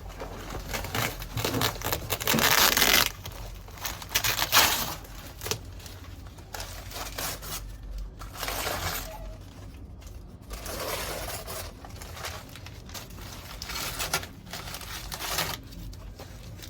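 Packaging being torn open and crumpled by hand: irregular bursts of rustling and tearing, loudest in the first few seconds, then quieter handling.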